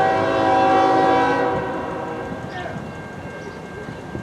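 Norfolk Southern ES44AC diesel locomotive's air horn sounding one long multi-note chord, loudest in the first second and a half and fading out a little past halfway. A low rumble from the train runs underneath.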